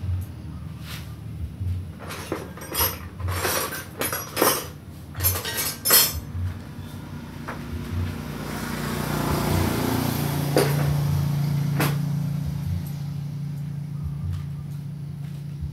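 Metal clanking: a quick run of sharp metal-on-metal strikes and knocks, thickest between about two and six seconds in, then a hiss that swells up and fades away over about four seconds, with a low steady hum setting in under it.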